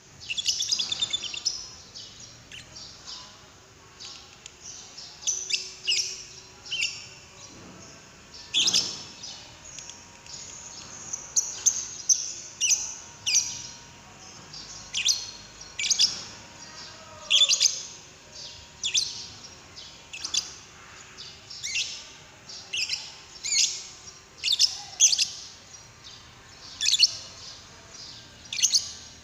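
Lovebird singing: clusters of short, high, rapid chirps that recur every second or two.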